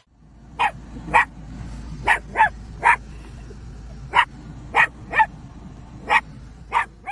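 A dog barking: about ten short, single barks at uneven intervals, over a low steady background rumble.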